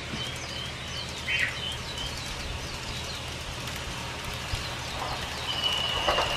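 Birds chirping in short repeated notes over a steady background hiss, with one longer steady whistle near the end, as a rattling rumble begins to build.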